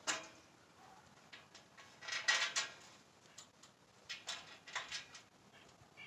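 Scattered metallic clinks and rattles of bolts, washers and nuts being fitted by hand as sections of a rusty steel hay ring are bolted together. They come in a few short clusters, the loudest about two seconds in.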